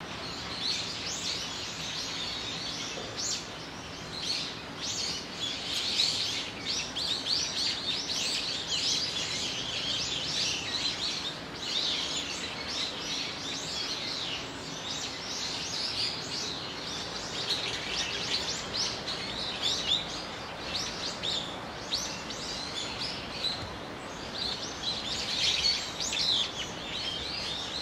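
Many small birds chirping in a busy, overlapping chorus over steady low outdoor background noise.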